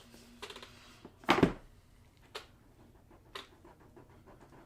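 Packaging being handled by hand: one short knock with a rustle about a second and a half in, then two light taps.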